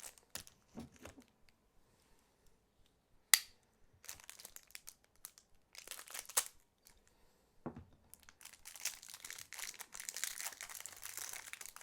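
Packaging crinkling and rustling in irregular bursts as the pen is unwrapped, with one sharp click about a third of the way in.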